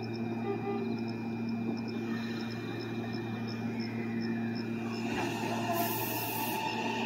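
Electric train at a station platform: a steady electrical hum, then from about five seconds in a growing rush with a faint rising motor whine as the train starts to accelerate.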